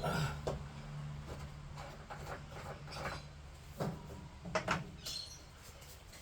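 A low steady electrical hum that fades out over the first second or two, then a few scattered clicks and knocks, the loudest pair about four and a half seconds in.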